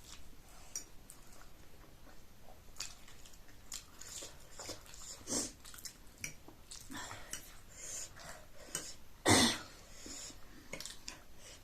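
Close-up eating sounds as chow mein noodles are chewed and slurped, with scattered small clicks and smacks. One louder, brief noise comes about nine seconds in.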